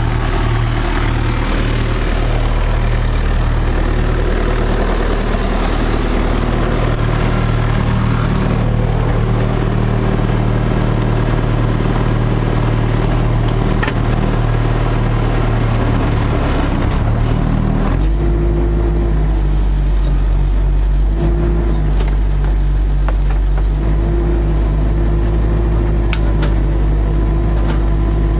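Diesel engine of a Bobcat 331 compact excavator running hard under load as the boom pushes against a tree. Its note changes abruptly about 18 seconds in to a lower, steadier hum.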